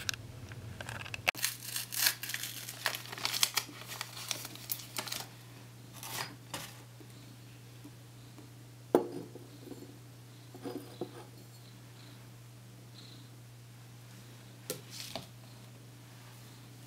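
Hands handling objects: intermittent crinkling and rustling with a few light knocks. It is busiest for a few seconds after the start, then comes only now and then.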